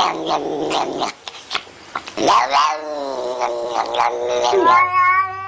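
A cat yowling in long, drawn-out cries that bend up and down in pitch, with a brief quieter gap about a second in.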